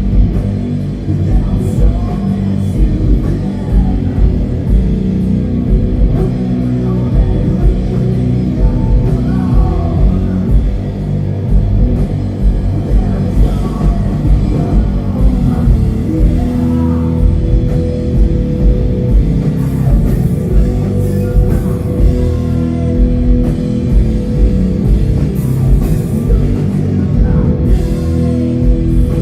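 Doom metal band playing live: distorted guitars, bass and drums, loud and dense in the low end. A sustained note comes in a little past halfway.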